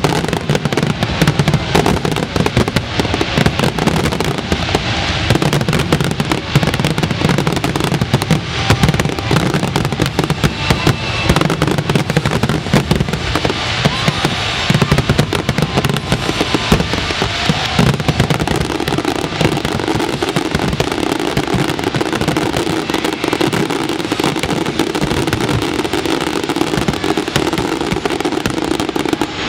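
Fireworks finale barrage: a dense, unbroken run of rapid bangs and crackling shell bursts, with the show's music soundtrack audible underneath.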